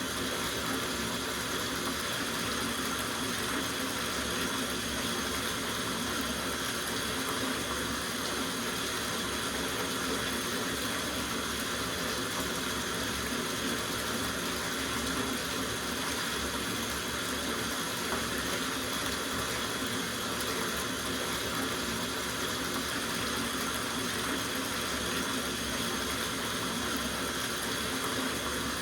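Water running from a tap into a soak bathtub, a steady even rush of pouring and splashing.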